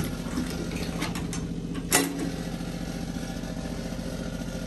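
A steady motor drone runs throughout. About two seconds in comes a single sharp metallic clack from the steel ammo can's lid latch being snapped open.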